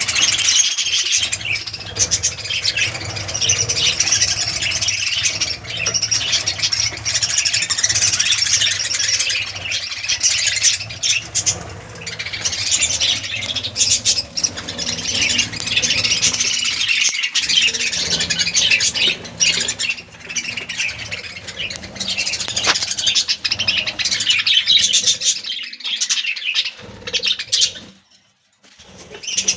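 A colony of budgerigars chattering and squawking without a break, over a low steady hum; the sound drops out briefly near the end.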